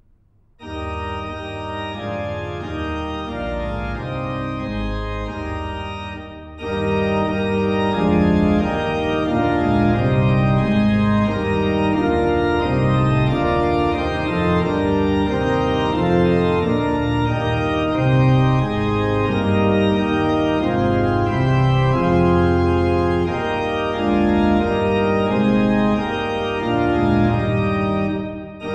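Organ playing a hymn accompaniment in sustained, changing chords. It comes in softly about half a second in, pauses briefly around six seconds, then continues louder and fuller, with a short break near the end.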